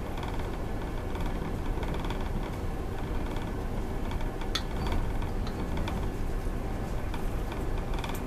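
A passenger train running at speed, heard from inside the carriage: a steady low rumble of wheels and running gear on the rails. A single sharp click comes about four and a half seconds in.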